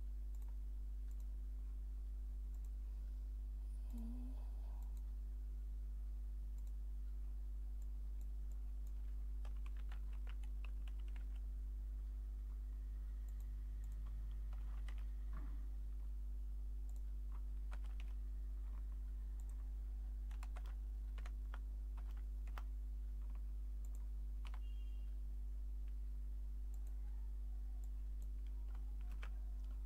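Computer keyboard keys tapped in short scattered bursts, with a few clicks, over a steady low hum.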